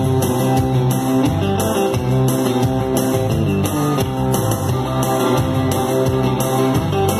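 Instrumental break of an upbeat country song, led by guitar over bass and drums with a steady beat.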